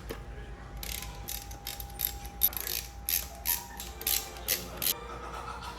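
Socket ratchet wrench clicking through about a dozen quick strokes, tightening bolts on a Land Rover LT76 gearbox, then stopping about five seconds in.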